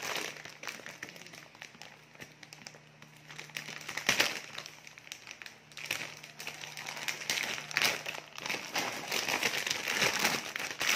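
Clear plastic packaging crinkling and rustling in irregular bursts as hands pull it open around a coil of rubber car-door edge trim, loudest about four seconds in and again near the end.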